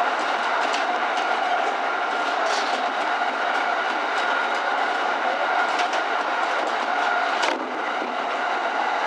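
E231-series electric train running along the track, heard from inside the cab: steady running and rail noise with a faint whine and scattered clicks from the wheels. About seven and a half seconds in the sound changes abruptly as the train enters a tunnel.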